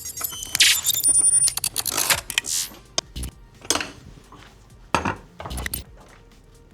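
Metal tools and bicycle parts clinking and clattering on a workbench, in a series of sharp knocks and clanks of uneven spacing.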